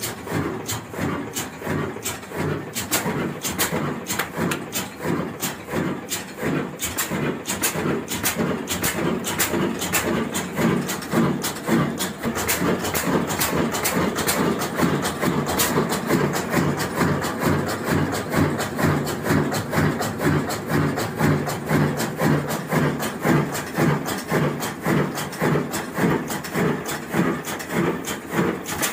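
A 24 HP Super Diamond single-cylinder stationary diesel engine running, with an even beat of several strokes a second.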